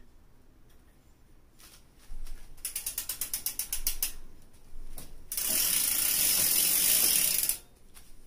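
Mountain bike rear freehub ratcheting: a run of rapid, even clicks about two and a half seconds in, then a louder continuous high buzz for about two seconds before it stops.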